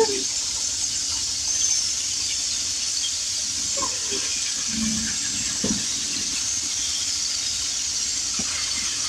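Marinated fish pieces shallow-frying in hot oil in a pan: a steady sizzle, with a few faint knocks of a utensil.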